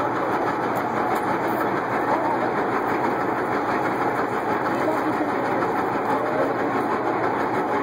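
Diesel tank driving past, its engine running steadily under the clatter of its steel tracks on pavement.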